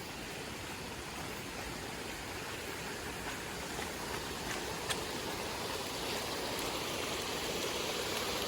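Steady rush of a rain-swollen mountain stream pouring over small waterfalls, growing a little louder near the end.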